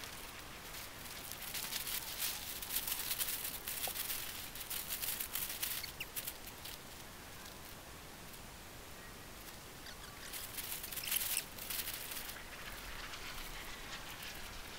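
Faint, irregular rustling and crackling in two spells, from about one to six seconds in and again from about ten to twelve seconds in, loudest near eleven seconds.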